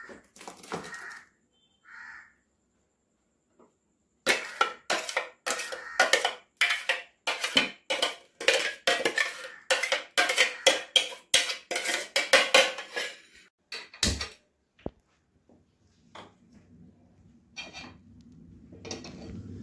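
A metal spoon scraping and clinking against a stainless-steel mixer-grinder jar, getting blended pineapple pulp out. It makes a quick run of scrapes and knocks that lasts about nine seconds. A single knock follows, and a faint low rush begins near the end.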